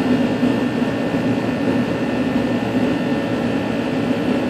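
A steady mechanical hum of running machinery, even throughout with no knocks or clicks.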